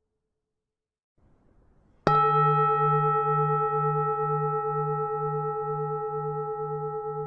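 Buddhist temple bell struck once, about two seconds in, then ringing on with a slowly fading, pulsing hum.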